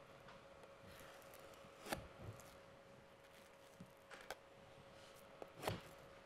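Near silence with soft handling sounds on a cutting board covered in plastic wrap: two light knocks, one about two seconds in and one near the end, and a few fainter clicks, over a faint steady hum.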